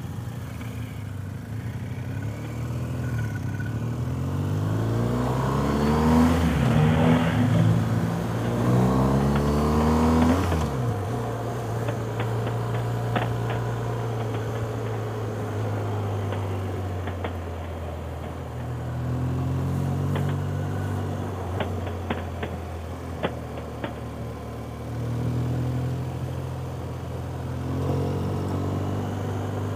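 Motorcycle engine pulling away and accelerating, its pitch rising and dropping back through several gear changes, then settling at a steady pitch as it cruises.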